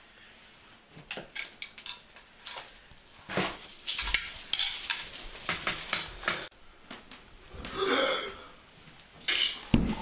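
A scuffle among furniture: an irregular run of knocks, clatters and thumps that grows louder after about three seconds, with a short cry about eight seconds in.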